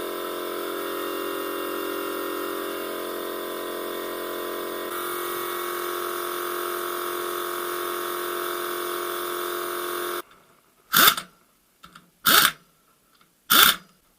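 A small electric motor, as in a power tool, runs steadily, its tone shifting slightly about five seconds in, then cuts off suddenly. Three short, loud knocks follow, about a second and a half apart.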